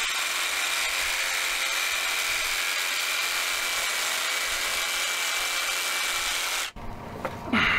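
Ryobi jigsaw running steadily as its blade cuts through the plastic tube of an RV black tank wand, with a faint constant whine; the saw stops suddenly about seven seconds in, and a brief sharp noise follows right at the end.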